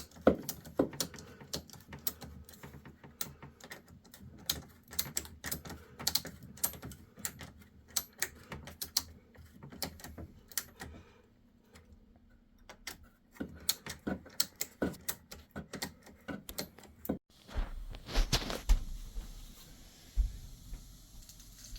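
Ratchet of a torque wrench clicking in quick irregular runs as a fitting on the drain pipe is tightened, with a short pause about halfway. Near the end the clicking stops and a duller rustling, handling sound takes over.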